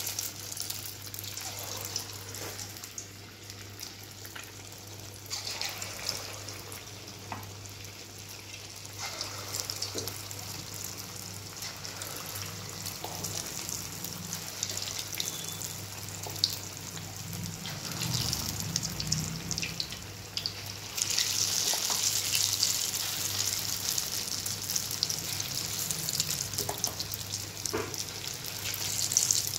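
Moong dal pakoras deep-frying in hot oil: a steady sizzle with crackling that grows louder about two-thirds of the way in.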